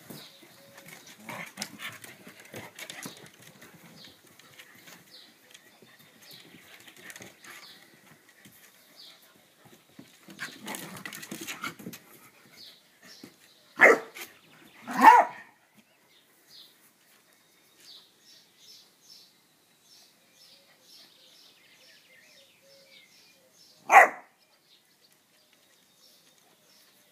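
A Landseer puppy and a cairn terrier playing on wooden decking: paws scuffling and tapping on the boards, then short barks, two about a second apart midway and a single one near the end.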